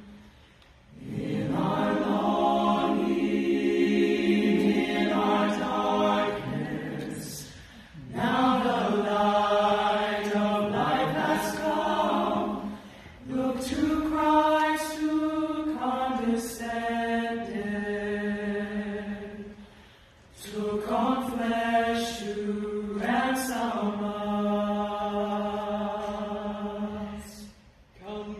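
Mixed-voice a cappella choir singing a hymn in long held chords. It sings four phrases, with a short breath-pause between each.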